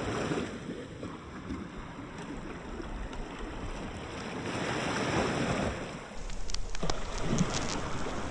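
Wind buffeting the microphone over the wash of waves: a steady rushing noise with a low rumble.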